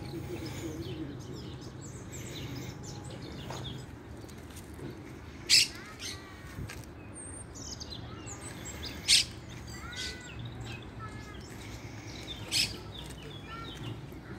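Small birds chirping in the trees, with a sharp, loud high call repeated three times about three and a half seconds apart. Short rising and falling chirps come between the calls, over a faint steady low hum.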